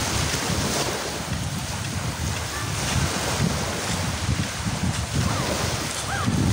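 Small waves washing through shallow seawater at high tide, with gusty wind buffeting the microphone.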